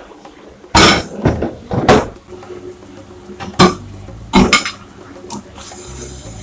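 Dishes and cutlery clattering as they are handled in a kitchen sink area: a run of loud clatters in the first two seconds, then two more a little later.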